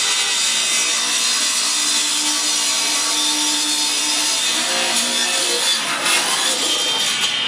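Table saw blade cutting through a glossy wood-grain laminated board, a steady, dense, hissing sawing noise.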